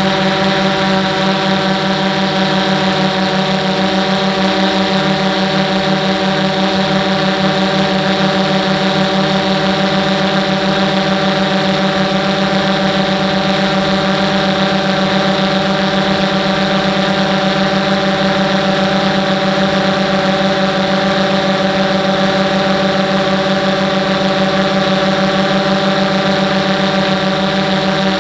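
DJI Phantom 1 quadcopter's motors and propellers running steadily in flight, heard close up through the camera on board: an even hum made of several held tones.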